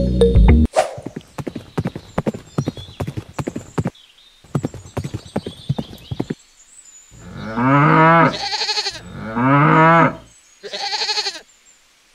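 A run of light clicks and taps, then a cow mooing in two long, wavering calls past the middle, followed by a shorter, higher call near the end.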